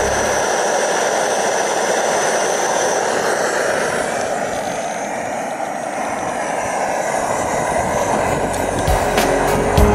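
MSR XGK liquid-fuel expedition stove burning at full flame under a pot of water, a steady rushing noise.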